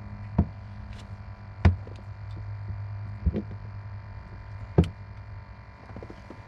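Four sharp knocks on the boat, spaced a second or so apart, while a big catfish is handled at the net, over a steady low hum.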